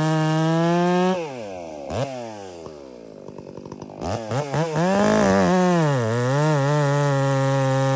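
Stihl MS 661 C two-stroke chainsaw, fitted with a straight-shot muffler, running at full throttle through a log. About a second in the engine is let off and winds down to a quiet idle. About four seconds in it revs up again, its pitch wavering as the chain bites into the next cut, then runs steady under load.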